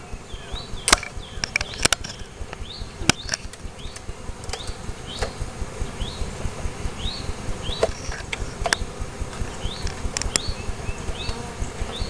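Honeybees buzzing in a mass around a hive as they are being installed. Short high rising chirps come about once a second, and there are a few sharp clicks.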